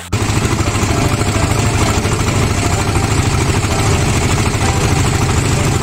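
Fishing boat's engine running steadily under way, a fast, even throb with a hiss of water and wind over it; it cuts in abruptly at the start.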